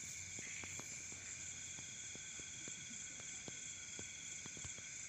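Night insect chorus, crickets trilling steadily at several high pitches, with a scattered run of faint clicks and taps.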